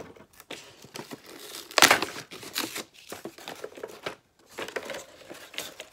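Cardboard and plastic product packaging rustling and crinkling as it is handled and opened by hand, with a louder tearing rustle about two seconds in.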